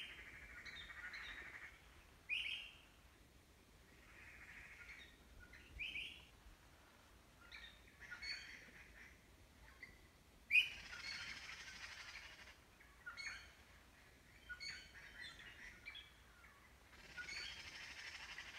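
Birds chirping in short, sharp calls every second or two, over soft rustling and crunching of bamboo leaves as a giant panda chews them.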